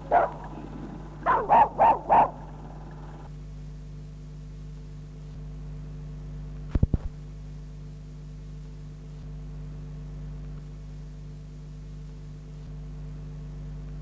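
A dog barking: one bark at the start, then four quick barks about a second in. After that only a steady low hum remains, broken about halfway through by a quick cluster of three short, sharp sounds.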